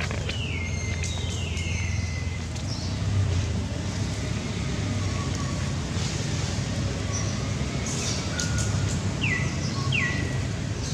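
Birds calling in the background: a few high whistled notes that slide down in pitch, two near the start and two in quick succession near the end, with short chirps between. Under them runs a steady low rumble.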